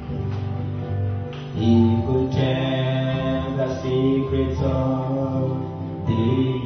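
Gospel worship song: singing into a microphone over acoustic guitar, growing louder about a second and a half in.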